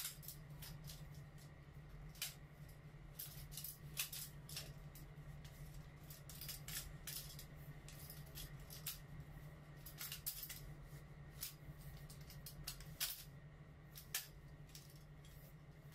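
Metal ring light tripod stand being handled: scattered faint clicks and rattles from its legs, leg brace and centre pole. A steady low hum sits underneath.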